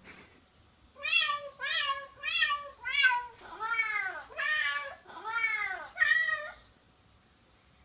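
A string of about eight cat meows: four short, alike ones, then four longer, drawn-out ones that rise and fall in pitch.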